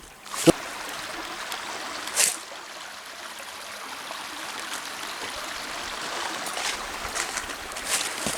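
Shallow stream water trickling steadily, with a sharp knock about half a second in and a brief splash-like hiss a little after two seconds.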